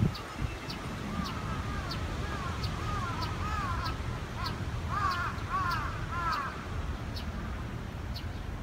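Birds calling: a run of short arching calls that grow louder about five to six seconds in, over a sharp high chirp repeating roughly every two-thirds of a second.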